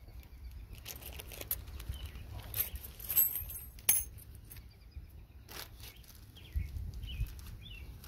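Small metal RV cam-lock parts being handled: scattered light clicks and clinks, the sharpest a few seconds in, over a low steady rumble.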